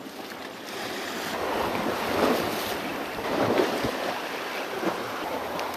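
Small harbour waves washing and splashing against the rock ledge at the water's edge, with wind buffeting the microphone.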